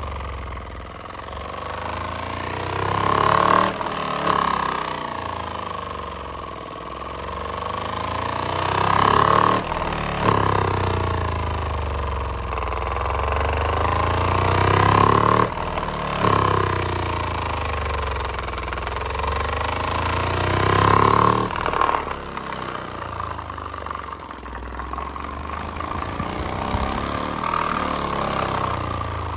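Pyle PLPW8D 8-inch subwoofer playing a break-in sweep: a loud bass tone that glides up and down, repeating about every six seconds. It is being driven hard by a large amplifier in a power test toward failure.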